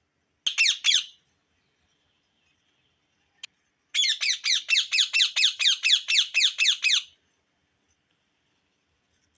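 Ringneck parakeet calling: a short burst of quick, shrill, downward-sliding notes, a click, then a long run of about fifteen rapid descending screeches at roughly five a second.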